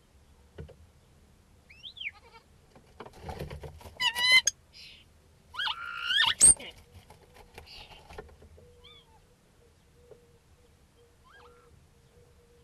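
Common starling singing in its mimicking style: a rising-falling whistle about two seconds in, a quavering bleat-like imitation about four seconds in, a louder sliding call ending in a sharp click about six seconds in, then a few faint short notes.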